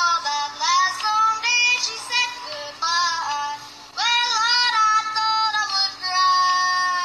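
A boy yodelling a country song unaccompanied, his high voice flipping quickly between notes, with a brief pause about four seconds in.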